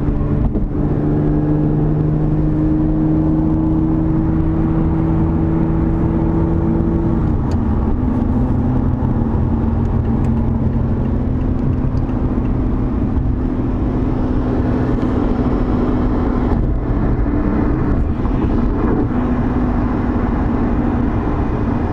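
2020 Lotus Evora GT's supercharged V6 engine running at a steady drone under road noise while driving. About seven seconds in, its pitch drops suddenly, then holds steady again.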